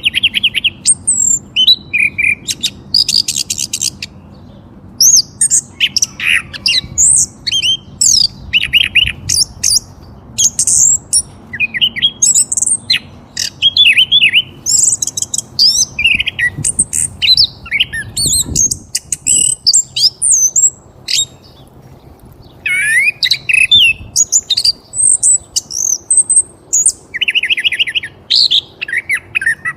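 Several small birds chirping and twittering, many quick high calls and trills overlapping, with brief lulls about four seconds in and again around twenty-one seconds.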